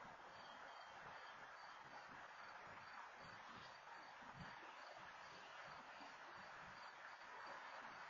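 Near silence: faint steady outdoor hiss with a soft high chirp repeating about twice a second; no train horn is heard.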